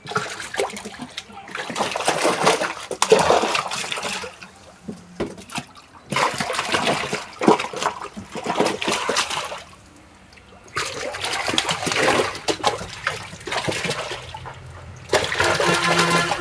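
Water splashing and sloshing in several bursts of a few seconds each, with short pauses between them.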